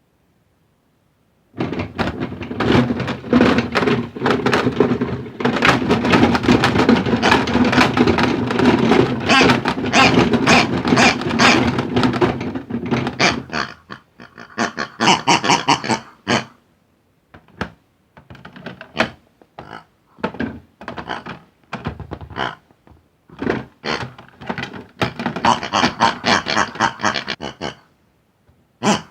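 Balls knocking and thudding against the plastic tub of a toy washing machine: a dense clatter for about ten seconds, then scattered knocks in short runs.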